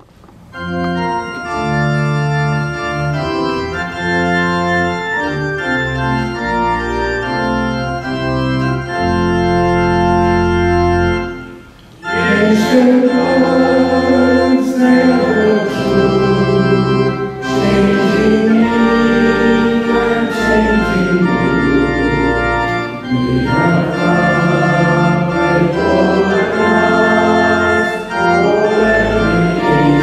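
Organ music: sustained keyboard chords, then a louder, fuller passage from about twelve seconds in, with a melody line that slides in pitch.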